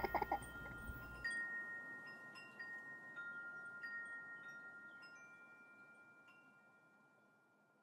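Chimes struck one note at a time, half a dozen clear ringing notes a second or so apart, each ringing on under the next and the whole dying away near the end.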